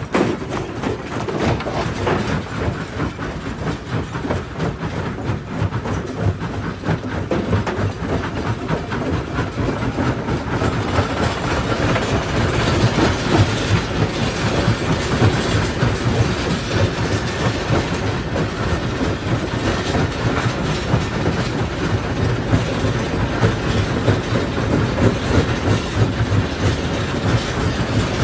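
Primary jaw crusher running and crushing stone: a steady heavy rumble thick with rapid knocks and cracks of breaking rock, growing a little louder about ten seconds in.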